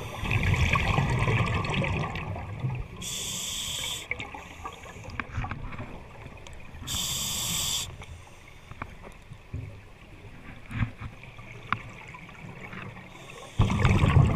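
A scuba diver breathing underwater through a regulator. A rumble of exhaled bubbles at the start and again near the end, with two short hissing inhalations through the regulator in between, about three and seven seconds in.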